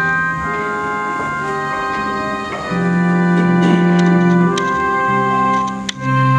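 Electronic keyboard playing long held organ-like chords over an electric bass, an instrumental interlude between sung lines of a hymn. The chords change about two and a half seconds in and again near the end, growing louder at the first change.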